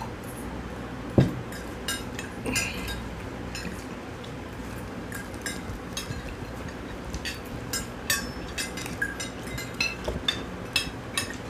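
Metal forks and spoons clinking and scraping against glass plates while people eat noodles, in many short irregular clicks. A single louder knock about a second in.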